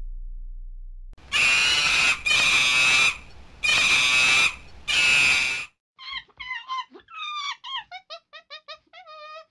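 Four loud, harsh screeches in a row, followed by a quick run of short, high, squeaky chirps that step down in pitch.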